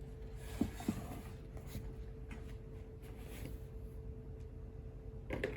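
Craft items and paper being handled on a tabletop: two light knocks about half a second in, scattered rustling and scraping, and a few louder knocks near the end. A faint steady hum runs underneath.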